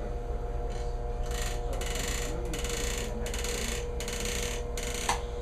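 Electric handheld massager running with a steady hum, its head rubbed over the patient's back muscles in about six scratchy rubbing strokes.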